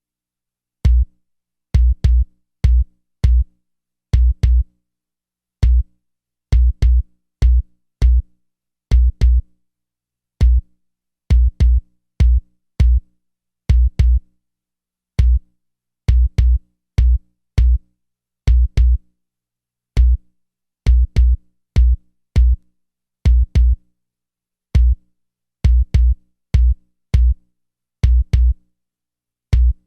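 60 Hz bass test signal: short, punchy synthesized bass pulses like a drum-machine kick, repeating in an uneven rhythmic pattern with silence between hits.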